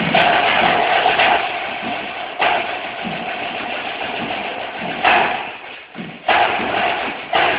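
Snare drums of a drum ensemble playing sustained, dense rolls, with sharp loud accented entries about two and a half, five and six seconds in.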